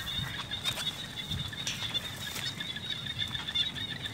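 A chorus of many small frogs calling together after rain: a steady, high-pitched, pulsing trill of rapidly repeated notes.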